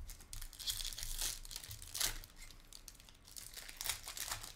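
Foil wrapper of a Bowman University Chrome trading-card pack crinkling and tearing as it is ripped open by hand, in a series of irregular crackles.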